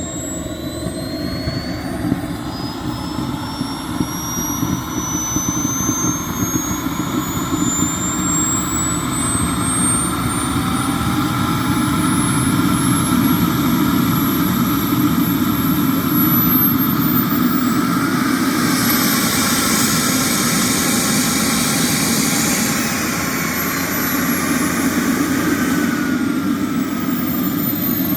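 KingTech K102 model jet turbine running with a steady roar and a thin high whine that climbs slowly in pitch as it spools up. About two-thirds of the way in it grows louder and brighter, then the whine falls in pitch near the end.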